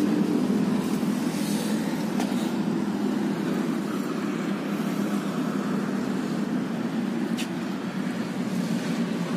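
Steady low rumble of vehicle noise, with a faint click about seven seconds in.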